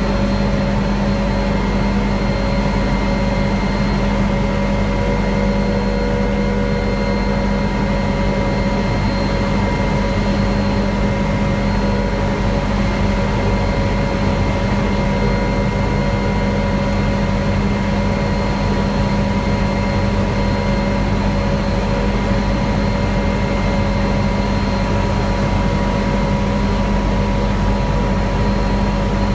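Helicopter engine and rotor running steadily, heard from on board: a constant drone with a steady high whine over it.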